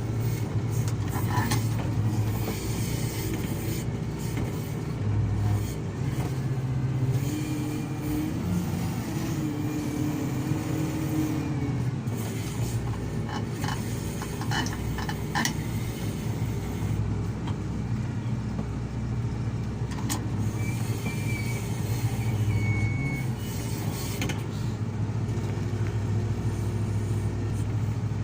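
Komatsu PC220 excavator's diesel engine running steadily under working load. A wavering whine rises and falls about a third of the way in, and there are scattered sharp knocks and clatters.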